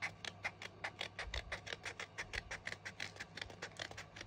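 Scissors snipping through card stock in quick short cuts, about five or six snips a second.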